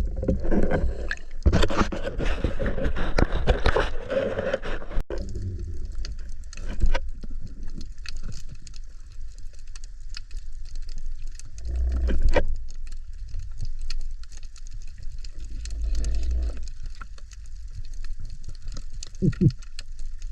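Water gurgling and sloshing around a spearfisher, loudest in the first five seconds and then quieter, with a few short knocks.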